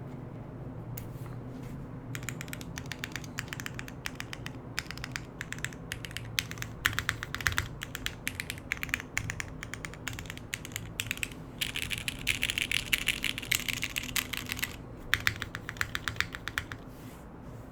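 Typing on a Cruelworld 88 TKL mechanical keyboard with lubed, lightly sprung Cherry MX Black linear switches, a polycarbonate plate and GMK keycaps: a steady stream of key clacks with brief pauses, and a faster, denser run of keystrokes about two-thirds of the way through.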